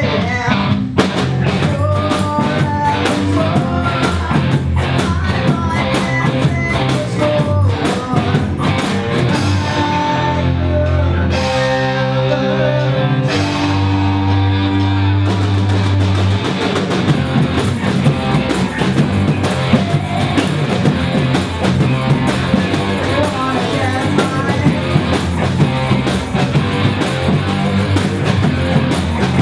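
Live rock band with a carnival bloco drum section: electric guitars, bass and sung vocals over massed surdo bass drums and smaller snare-type drums. About ten seconds in the drumming drops back to held guitar and bass notes, and the full percussion comes back in about five seconds later.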